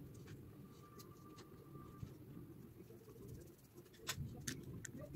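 Faint clicks and taps of small tools and metal parts on a chainsaw carburetor as its gasket, diaphragm and cover are fitted back on, with a few sharper clicks about four seconds in.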